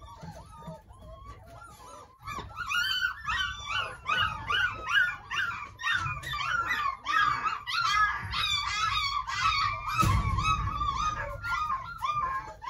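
Several 31-day-old Doberman puppies whining and yelping, many short high cries overlapping almost without pause from about two seconds in, with a dull bump about ten seconds in.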